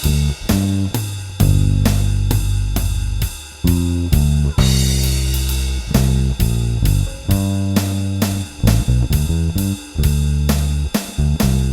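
Electric bass guitar with a Seymour Duncan Designed pickup, run through a Studio Bass compressor, playing a blues-rock line of held low notes over a drum kit keeping a steady beat on the cymbals, with a cymbal crash about four and a half seconds in.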